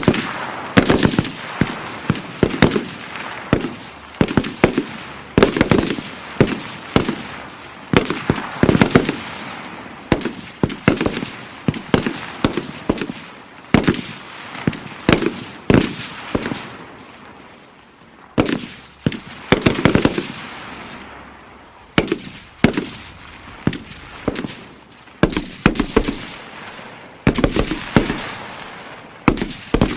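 M16 assault rifle firing in single shots and quick strings of shots, each group of cracks trailing off in a rolling echo.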